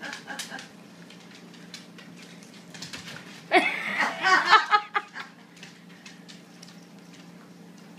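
A person laughing for about a second and a half near the middle, with a little chuckling trailing off at the start. Otherwise faint scattered clicks over a low steady hum.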